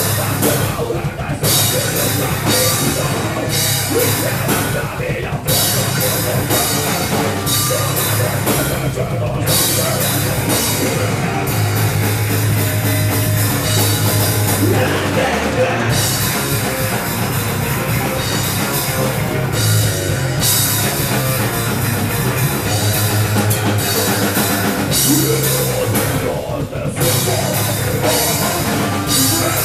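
Rock band playing loud heavy rock, driven by a full drum kit, with a few brief breaks in the playing.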